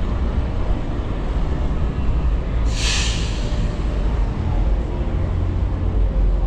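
Wind rumbling on the microphone and city traffic while riding a bicycle, with a short hiss about three seconds in.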